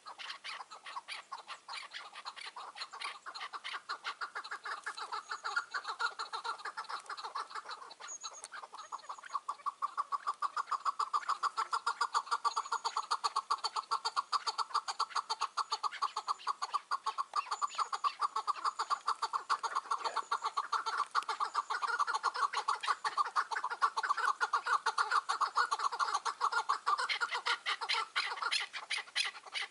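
Chukar partridge calling a rapid, unbroken run of chuk notes, getting louder about a third of the way in and easing near the end.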